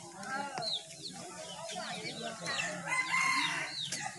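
A rooster crowing about two and a half seconds in, among repeated short, high chirps that slide down in pitch.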